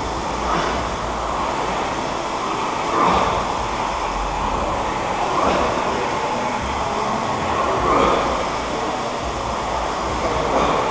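Several air-resistance rowing machines being rowed hard at once: their fan flywheels make a steady whooshing that swells with each drive stroke, about once every two and a half seconds.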